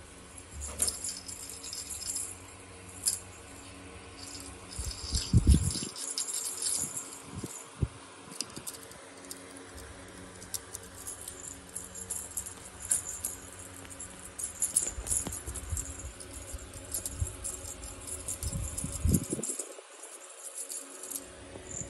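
Light jingling and rattling as kittens play with a string toy, with a few dull bumps.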